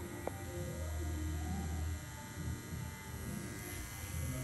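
Pen-style rotary tattoo machine buzzing as its needle works into the skin of a forearm. The buzz is strongest for about a second near the start and picks up again near the end.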